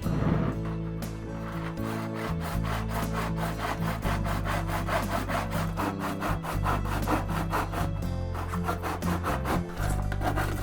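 Saw cutting with quick, even back-and-forth strokes, most likely through a thin plastic flowerpot being made into a round concrete form, over background music with long held bass notes.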